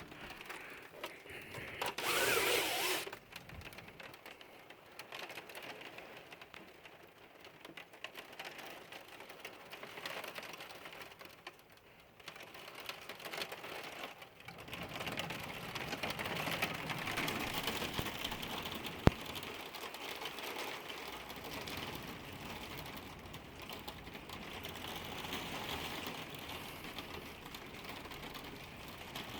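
Heavy rain pattering rapidly on a hard surface, a dense ticking patter that gets louder about halfway through. A louder rush of noise comes about two seconds in, and a single sharp click comes later.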